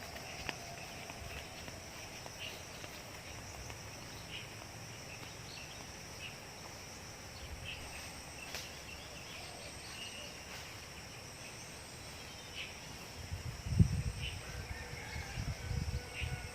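Rural outdoor ambience: a steady high insect drone with scattered short bird chirps. A few low thumps come near the end.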